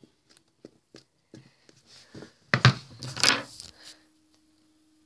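Soft squishy clicks of a finger poking slime, then a louder rustling clatter of handling noise as the phone is picked up and moved, about two and a half seconds in. A faint steady hum follows.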